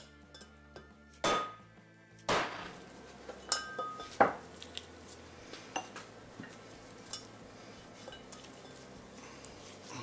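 Metal-on-metal knocks and clinks as a steel bearing race and its race-installer tool are set into a Jaguar IRS rear hub carrier. There are four louder sharp knocks with a brief ring in the first half, then lighter clicks.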